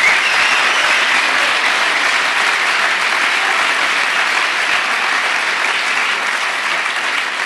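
A large audience applauding steadily, easing off a little near the end.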